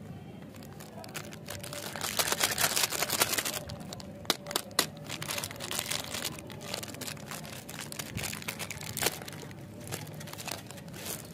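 Foil-lined plastic candy packet (Hilal Jiggly Crunch jelly candies) crinkling in the hands and torn open, densest and loudest about two to four seconds in, then scattered sharp crackles.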